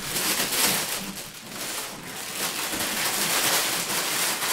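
Border collie puppies scuffling around a fabric play tunnel: a steady crinkly rustling full of small scratches and ticks.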